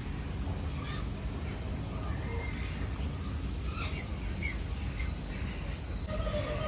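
A few short, faint bird chirps over a steady low background rumble in an aviary.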